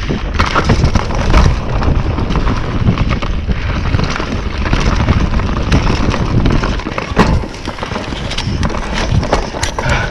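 YT Capra mountain bike descending a rough dirt trail at speed: tyres rumbling and crunching over dirt, leaves and roots, with frequent rattles and knocks from the bike over bumps and wind rushing over the microphone.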